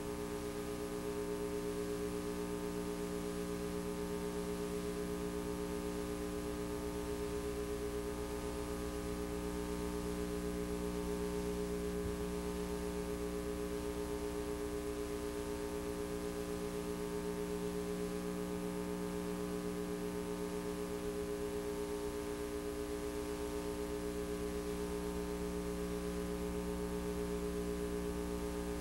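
Steady electrical hum and buzz over a faint hiss, unchanging throughout, with no recorded sound beneath it: a VHS transfer whose tape carries no audio track.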